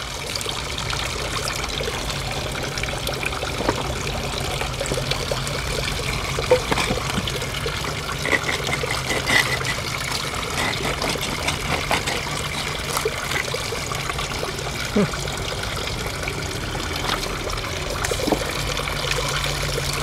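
Steady trickle of water running into the pond, with scattered light clicks and rustles over it.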